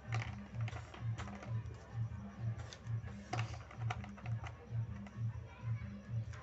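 Background music with a steady low beat, about two beats a second, over irregular sharp clicks and taps of small hard objects being handled.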